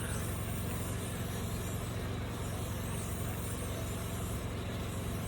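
Tormek T8 wet sharpener running steadily with a low motor hum while a Shun kitchen knife is drawn along its coarse-dressed Blackstone silicon carbide wheel, a faint hiss of steel on stone coming and going.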